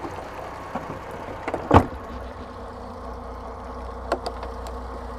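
Mercury F200 four-stroke outboard idling steadily. The engine cowling is set down onto it with a loud knock about two seconds in, followed by a few sharp clicks as the cowl latch is worked.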